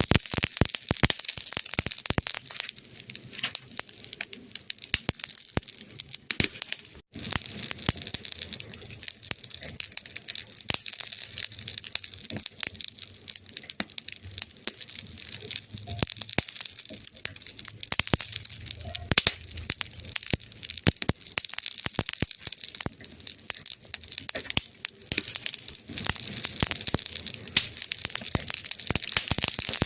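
Wood fire crackling: dense, irregular snaps and pops over a steady hiss. The sound drops out for a moment about seven seconds in.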